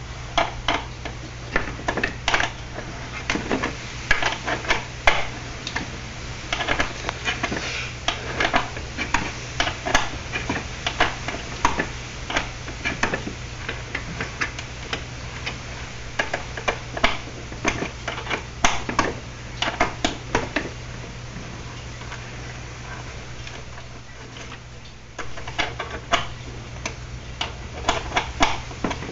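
Ratchet wrench clicking in irregular runs of sharp ticks as the bolts holding a car's turn signal lamp housing are backed out, with a lull of a few seconds late on. A steady low hum runs underneath.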